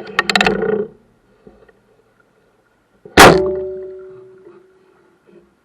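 A brief rattle of quick clicks, then about three seconds in a single sharp metallic clang whose ringing tone fades over about a second and a half.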